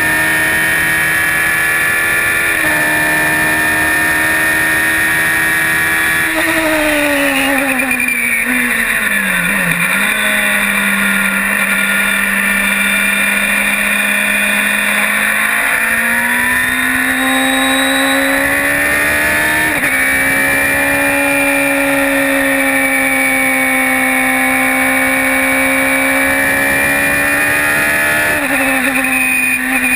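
Radical SR3 race car's engine running hard, heard from on board. The engine note holds steady, falls in steps from about seven to ten seconds in, then climbs again around sixteen and twenty seconds in.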